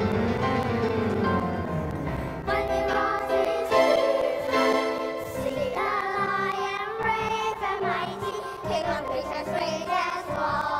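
Children's chorus singing a song to music.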